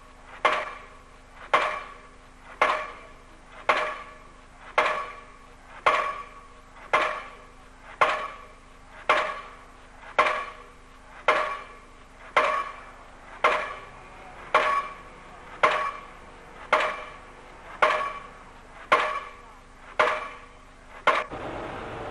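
Crane-mounted pile driver hammering a foundation pile: heavy, ringing metallic blows, about one a second, in a steady run of some twenty strikes that stops just before the end.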